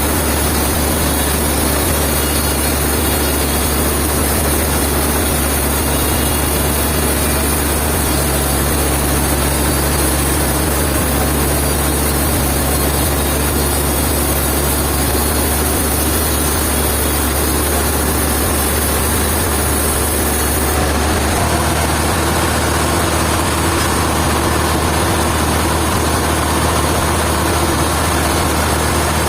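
A heavy engine running steadily with a deep, even hum, its sound changing slightly about two-thirds of the way through.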